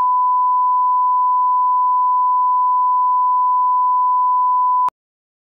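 Television test tone heard with colour bars: one steady, unbroken beep at the standard reference pitch, cutting off suddenly near the end.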